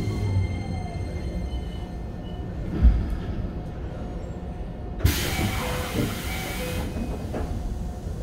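Keikyu 1500-series train with Toyo IGBT-VVVF control braking: the inverter whine falls in pitch, a low bump comes about three seconds in, and a loud burst of compressed-air hiss lasts about two seconds from about five seconds in.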